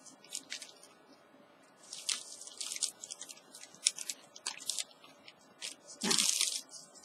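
Plastic wrapping crinkling and rustling under handling hands, in short irregular bursts, with the loudest rustle about six seconds in.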